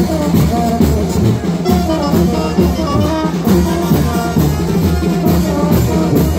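Live brass band playing chinelo dance music: horn melody over cymbals and drums in a steady, bouncing beat.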